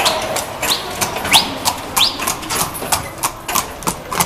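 Hooves of a horse pulling a carriage clip-clopping on the hard path as it passes close, about four to five hoof strikes a second. Three short rising squeaks come in the first two seconds.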